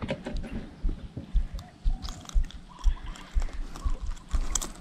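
Handling noises while a small snakehead is unhooked from a soft lure: scattered irregular clicks and rustles, with low bumps in between.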